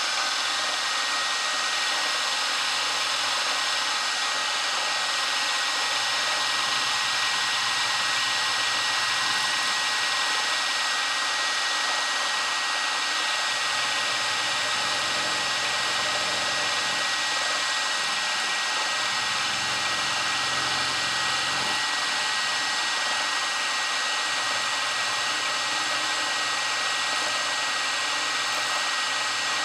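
Grizzly G0704 benchtop milling machine running steadily, its small end mill cutting spokes into a 6061 aluminum flywheel, with a steady high whine over the machine noise.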